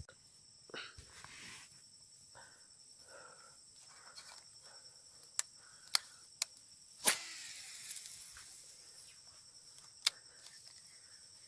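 Steady high-pitched chirring of insects, with a few sharp clicks about halfway through. The loudest click comes about seven seconds in and trails off in a brief rush of noise.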